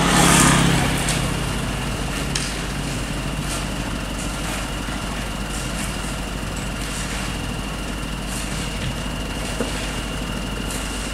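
Dump truck's diesel engine idling steadily, with a brief louder surge in the first second. Faint clicks come now and then over the hum.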